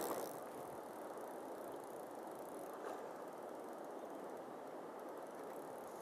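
Shallow river current flowing over stones: a steady, faint rush of water.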